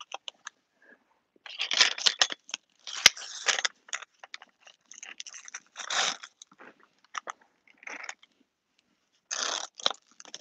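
Straps of a JAS knee flexion brace being adjusted by hand: short, rasping rips of hook-and-loop fastener and handling noise in irregular bursts, with one sharp click about three seconds in.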